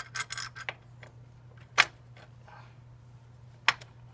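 Metal clinks of a bolt and its washers being handled and threaded by hand into a steel crash-bar mount: a short rattle at the start, then two sharp clicks about two seconds apart.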